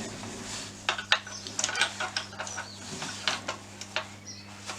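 Light metallic clicks, taps and scrapes of a spare quick-release air-line fitting being handled and fitted to an air nail gun's inlet, over a steady low hum.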